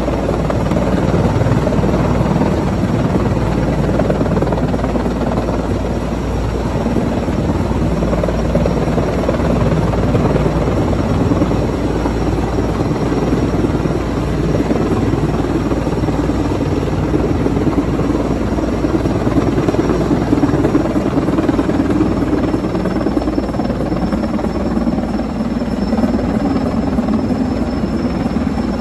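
Sikorsky S-64 Skycrane heavy-lift helicopter hovering low overhead, its rotor and twin turbine engines running steadily. A faint high turbine whine becomes clearer in the later part.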